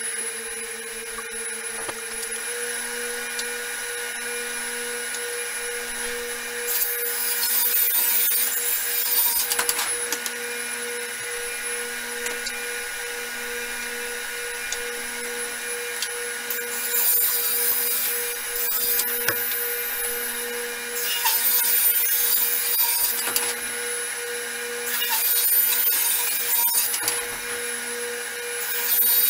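Ridgid R4520 table saw running steadily, its blade ripping plywood into strips. The cutting comes in several louder, hissing passes a few seconds long over the motor's steady hum.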